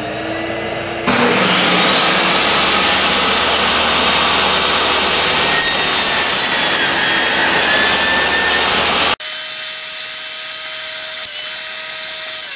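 Table saw motor spinning up with a rising whine, then running steadily, joined about a second in by a louder rushing noise. About nine seconds in, the sound changes abruptly to a quieter, steadier hum with a clear tone.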